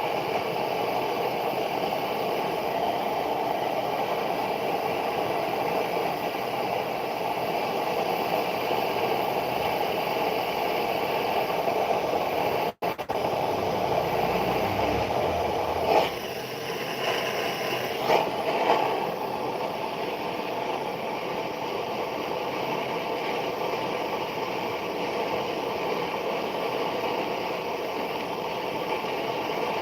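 A small motor running steadily. There is a brief cut about 13 seconds in and a few light clicks or knocks around 16 and 18 seconds.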